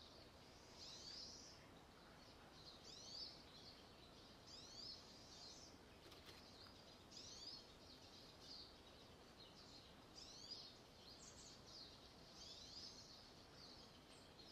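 Faint bird chirps in the background over quiet room tone: short, high sliding notes in small groups, a few every couple of seconds.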